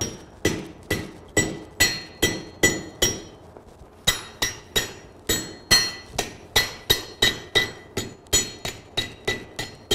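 Blacksmith's hand hammer striking hot half-inch steel stock on an anvil while shaping a forged leaf. The blows come in a steady run of about two and a half a second, with a short pause about three seconds in, and each blow rings with a clear metallic note.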